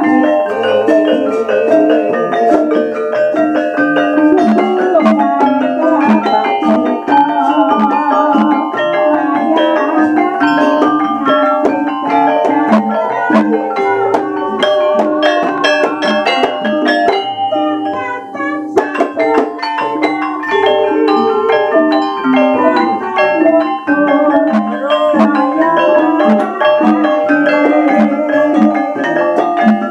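Javanese gamelan playing: bronze metallophones struck with mallets in quick interlocking note patterns over bonang kettle gongs, drum and gongs, the notes ringing on. The lower notes drop out for a moment a little past halfway, then the ensemble carries on.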